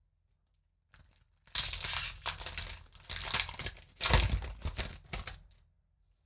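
Foil wrapper of a Magic: The Gathering booster pack being torn open and crinkled by hand. It starts about a second and a half in, with the loudest rips around two and four seconds in, and stops shortly before the end.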